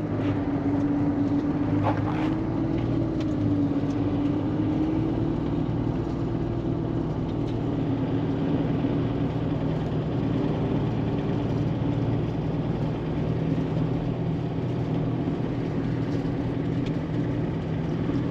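A car being driven: the engine runs steadily under road noise, its pitch wavering slightly.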